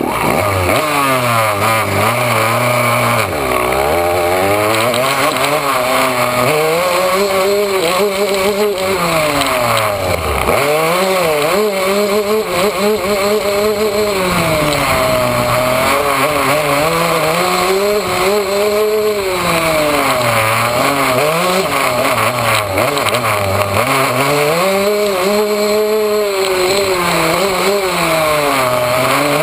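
Yamaha YZ125 two-stroke dirt bike engine being ridden. The revs climb and fall again and again with the throttle, dropping right down to a low idle a few times.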